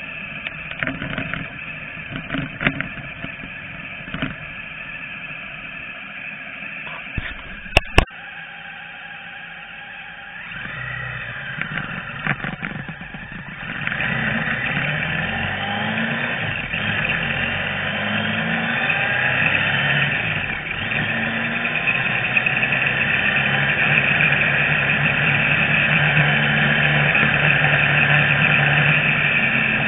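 Motor vehicle on the move, engine running under wind noise on the microphone, with scattered small clicks and two sharp knocks about eight seconds in. About halfway through the engine and wind grow louder and stay steady.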